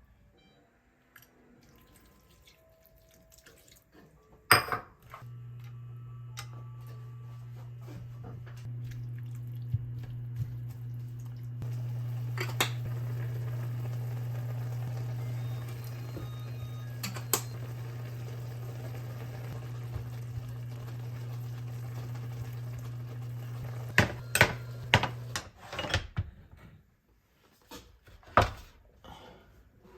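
A steady low hum that lasts about twenty seconds, with light clinks of dishes and cutlery over it. It starts just after a sharp click and stops amid a cluster of clicks and clatter.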